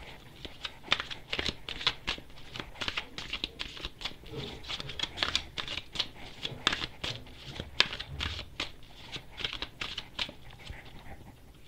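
A deck of tarot cards being shuffled by hand: many quick, irregular clicks and flicks of cards against each other.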